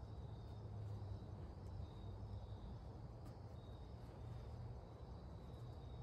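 Faint outdoor ambience: a steady low rumble with a faint high-pitched trill that comes and goes.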